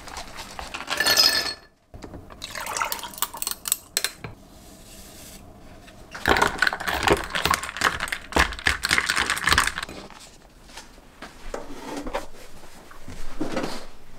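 Chopsticks stirring sauce through noodles in a paper cup, then ice clinking against a glass as an iced drink is stirred: a dense run of clinks lasting several seconds.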